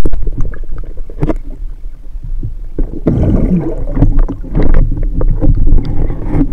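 Muffled underwater rumbling and water movement heard through a speargun-mounted camera's waterproof housing, with scattered knocks and clicks as the wooden speargun and its line are handled.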